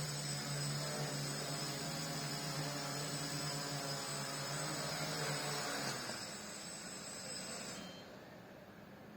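Quadcopter's 1000 kV brushless motors and propellers running at a steady pitch, a low hum with a high whine over it, during a short software-commanded takeoff and landing. The hum stops about six seconds in and the high whine about eight seconds in as the motors shut down.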